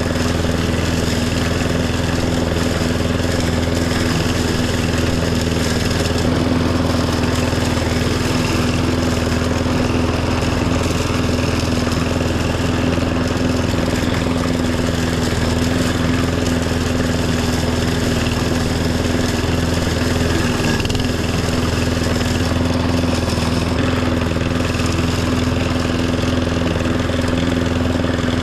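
Riding lawn tractor's engine running steadily while mowing, a constant hum with no change in speed.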